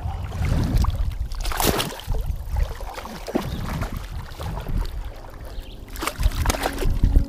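Shallow water splashing and sloshing in irregular bursts as a hooked walleye thrashes at the surface and is landed by hand, with the angler wading. The loudest splashing comes about one and a half seconds in and again around six seconds in.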